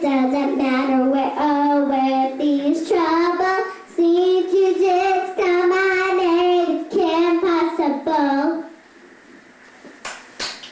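A young girl singing unaccompanied into a handheld microphone, holding drawn-out, wavering notes. She stops about eight and a half seconds in, and a few sharp clicks follow near the end.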